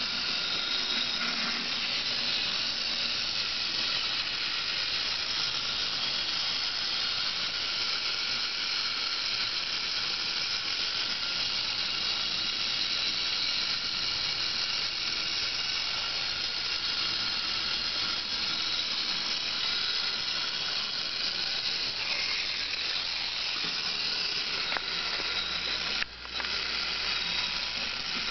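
Clockwork spring motor of an early-1900s German tinplate crawling beetle toy, probably by Gunthermann, running after winding: a steady high whirring of the gear train as the toy walks. It breaks off briefly about 26 seconds in.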